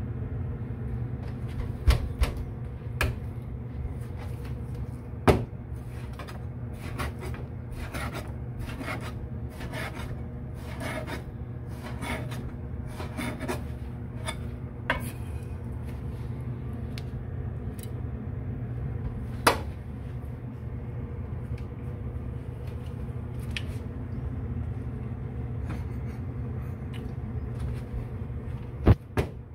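A knife scraping and cutting at a humpback red snapper on a cutting board: runs of short rasping strokes, thickest in the first half, with a few sharp knocks of the blade against the board, over a steady low hum.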